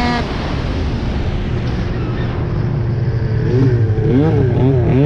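Arctic Cat CFR 1000R snowmobile's two-stroke twin through a loud aftermarket GGB exhaust can. It comes off a high steady rev right at the start and settles to a lower steady run. From about three seconds in it revs up and down in quick, wavering swings.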